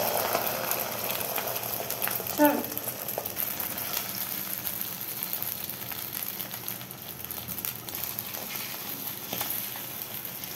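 Beaten egg frying in hot oil in a wok, sizzling and crackling, with a metal spatula pressing and scraping through it. A short, louder sound comes about two and a half seconds in, and the sizzle slowly dies down.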